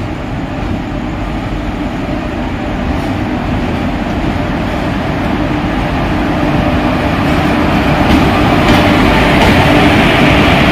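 Sleeper-class passenger train (13149 Kanchankanya Express) running on the rails, a steady rumble of wheels and track that grows steadily louder as it gathers speed after leaving a station.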